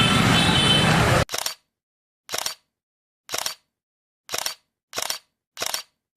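Street noise with traffic cuts off abruptly about a second in. Then a short, sharp, shutter-like click effect repeats over silence, about once a second and then faster toward the end.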